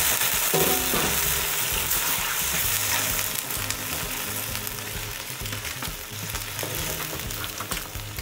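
Pieces of pig's large intestine sizzling in hot lard in a cast-iron wok, stirred with a metal ladle. The sizzle slowly dies down.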